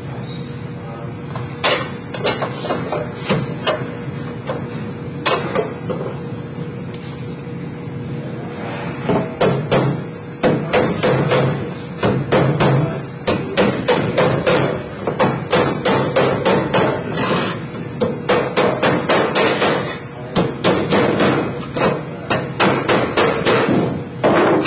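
Hammer striking galvanized sheet metal, tacking down the Pittsburgh lock seams of a duct elbow. A few scattered blows come first, then from about a third of the way in, quick runs of strikes, several a second.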